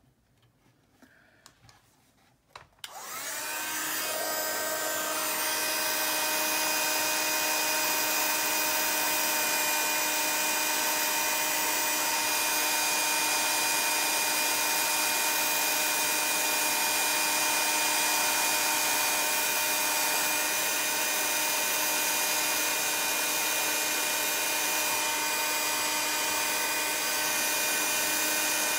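Handheld craft heat gun switched on about three seconds in, its fan spinning up to a steady blowing hiss with a steady motor whine.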